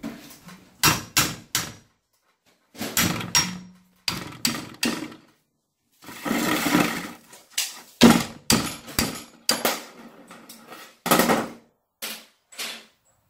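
Sharp metal knocks and clanks of hand tools on steel truck parts, in quick groups of two or three strikes with short pauses between. A longer rough scraping noise comes about six seconds in.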